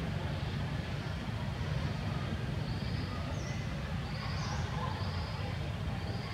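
Steady low outdoor background rumble, with a few faint, short high-pitched chirps in the second half.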